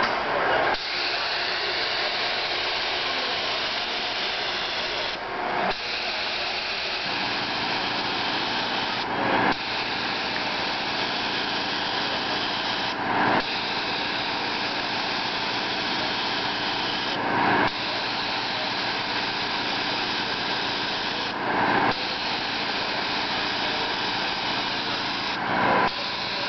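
Compressed-air paint spray gun hissing steadily in long passes, with a short break and a brief louder puff about every four seconds as the trigger is let go and pulled again.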